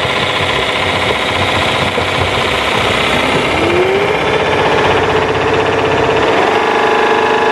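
ILIFE W90 wet-dry floor vacuum running its self-cleaning cycle in its dock: the motor and wet brush roll spin with a steady rattling whir. A whine rises in pitch about three and a half seconds in, and a second, higher tone comes in near the end.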